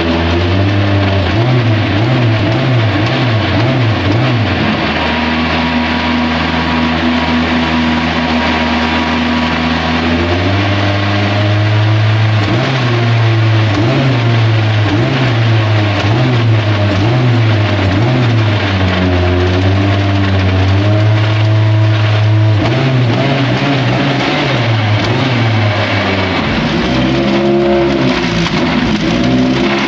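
Formula Renault 2.0 race car's two-litre Renault four-cylinder engine idling as it warms up. Its speed rises and falls in a regular rhythm, with a smoother, steadier stretch from about five to ten seconds in.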